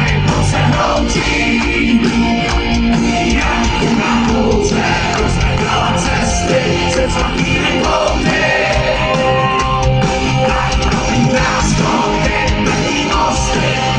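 Live rock band playing loud: a male lead singer sings into a microphone over electric guitar, drums and keyboards.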